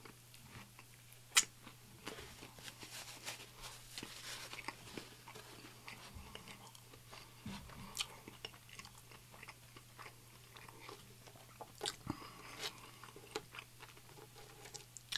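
Close-miked eating of an egg salad sandwich on wheat bread: wet chewing with mouth clicks and smacks, and a bite into the sandwich about eight seconds in. One sharp click about a second and a half in is the loudest sound. A faint steady hum runs underneath.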